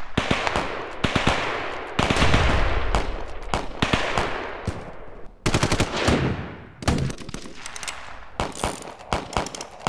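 Battle sound effects of gunfire: rapid bursts of machine-gun fire mixed with single shots, loudest and heaviest about two seconds and five and a half seconds in.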